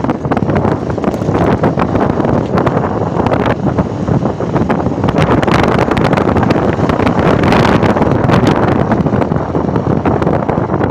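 Wind buffeting the microphone on a moving Bajaj Platina motorcycle, with its single-cylinder engine running underneath at steady riding speed.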